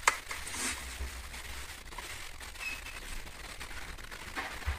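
Quiet room tone with a steady low hum, and a single sharp click right at the start.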